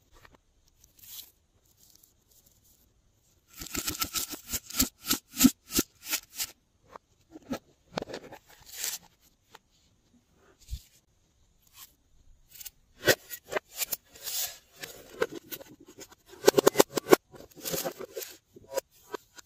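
Hard plastic novelty-shaped containers being handled close up: bursts of quick, sharp clicks and crackles, busiest about four to six seconds in and again in the last few seconds.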